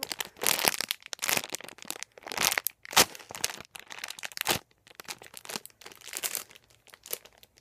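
A clear resealable plastic bag crinkling in irregular bursts as it is handled and squeezed, with one sharp click about three seconds in.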